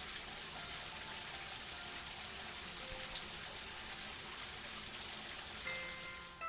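Steady, even hiss like heavy rain, with a few faint held musical notes beneath it. About a second before the end, clearer notes come in.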